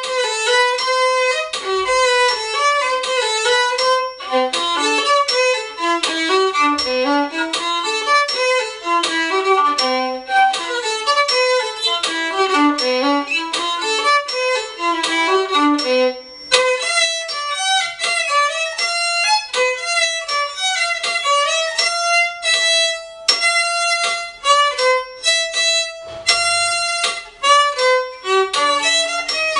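Solo violin played with the bow: a fast run of quick notes for the first half, then, after a short break about halfway, a slower passage of longer held notes, some high.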